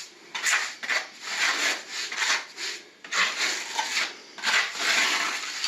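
Scrubbing strokes on terracotta floor tile, two to three back-and-forth strokes a second, running together into continuous rubbing in the second half.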